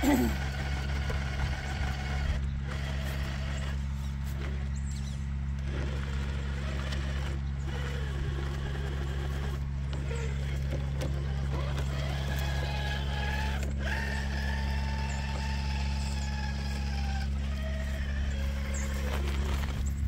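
Electric motor and gear drivetrain of a Traxxas TRX4 K10 RC crawler whining as it crawls up rocks, the whine rising and falling in pitch with the throttle and clearest in the second half, over a steady low hum.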